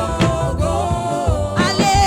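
Gospel praise music: voices singing over bass and drums.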